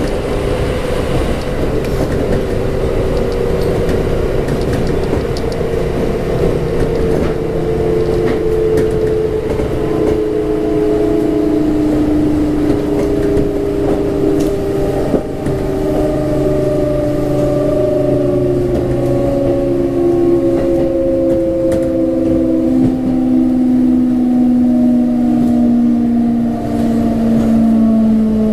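Kintetsu 1259 series electric train's GTO-VVVF inverter and traction motors whining in several stepped tones that fall slowly in pitch as the train slows, over the rumble of wheels on rail.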